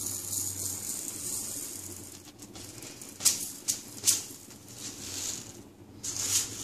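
Dry Gobindobhog rice grains poured from a clear plastic container into a small plastic cup: a steady hiss of grains at first, then several sharp clicks and rattles about halfway through and again near the end.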